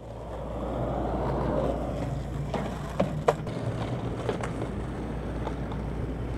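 Outdoor ambience on a parking deck: a steady rumble and hiss that swells for a second or two near the start, with a few scattered sharp clicks and clacks.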